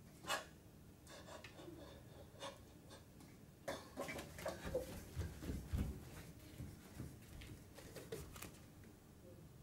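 Faint, irregular taps and soft thumps of a person moving about, bare feet stepping on a wooden floor, bunched in the middle with the heaviest thumps about five to six seconds in.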